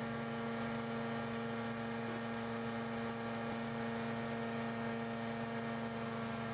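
Steady machine hum made of several fixed tones, holding at an even level throughout.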